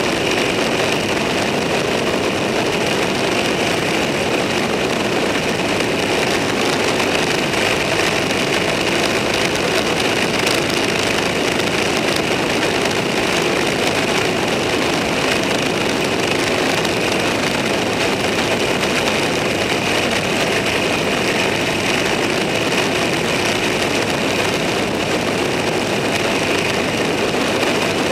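Motor vehicle cruising at a steady speed: constant engine and wind-and-road noise, with no change in pace.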